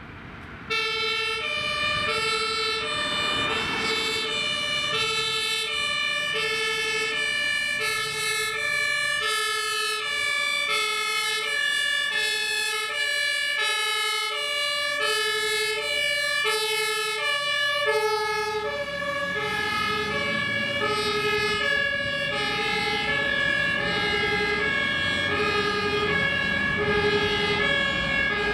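German fire engine two-tone siren (Martinshorn) switched on about a second in, then steadily alternating between a high and a low note, over the truck's engine and road noise.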